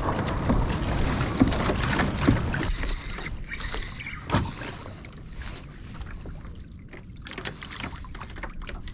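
Sea water sloshing and splashing around a kayak in a swell. It is louder for the first few seconds, then quieter, with scattered small knocks against the hull.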